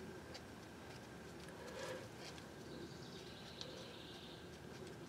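Quiet, with a few faint small clicks as the front differential's fluid-level inspection plug is unthreaded by hand, over low steady background noise.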